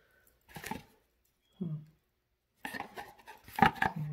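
Stacked gold-tone bangles and bracelets clinking and jangling against each other as the wrist moves, a dense run of sharp metallic clicks starting about two-thirds of the way in. Before that there is a brief soft hum of a voice.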